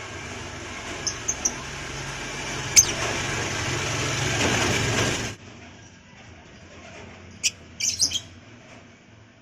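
A lovebird giving short, high, sharp chirps, a few about a second in and more about seven to eight seconds in. Under the first part runs a steady rushing noise that grows louder and cuts off suddenly a little past five seconds, with one sharp click in the middle of it.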